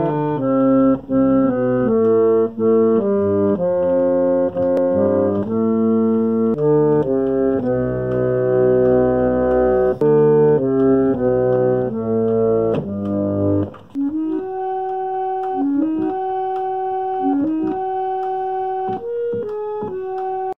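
Chicago Cottage model 555 reed pump organ from the 1890s playing held chords in the lower-middle range. After a short break about two-thirds of the way through, it plays a thinner, higher melody.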